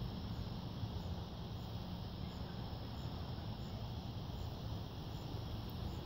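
Outdoor ambience: a steady low rumble with a faint high insect chirp repeating about every three-quarters of a second.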